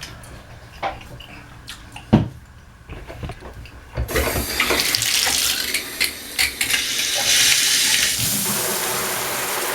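A few knocks and clicks, then about four seconds in water starts running hard from a newly fitted bathtub spout with a steady hiss, which turns duller about eight seconds in.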